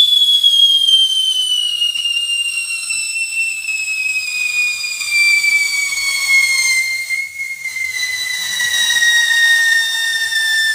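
Homemade Yakult-bottle scream whistle bomb burning, giving one long, loud whistle whose pitch falls slowly and steadily.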